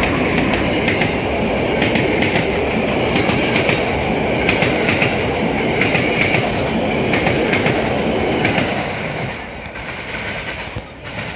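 SEPTA Regional Rail electric train passing close by at speed: a loud steady roar of wheels on rail with clicks over the track. It eases off about three-quarters of the way through as the last car goes by.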